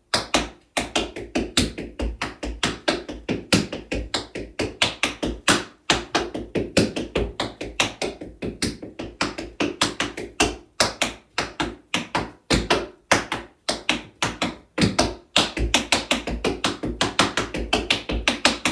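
Tap shoes striking a wooden tap board in a fast, continuous run of rhythmic time-step taps, with a few brief pauses.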